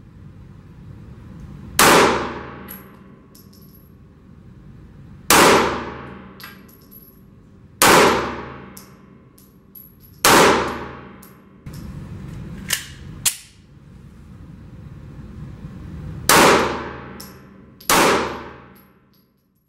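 A series of about eight sharp metallic clangs at irregular intervals, each ringing out and fading over a second or two, two of them close together in quick succession midway.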